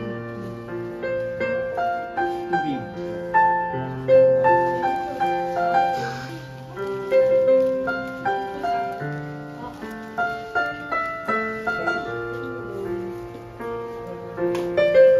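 Background solo piano music: a melody of single notes over held lower notes.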